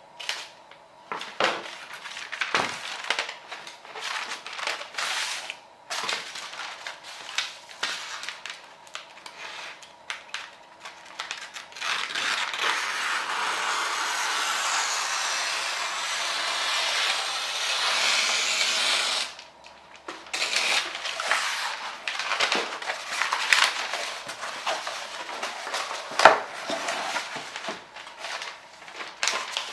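Brown kraft wrapping paper being cut with scissors and handled: snips and rustles, then one long steady cut through the paper lasting about seven seconds. Afterwards the paper rustles and crinkles as it is folded around a cardboard box, with a sharp tap a few seconds before the end.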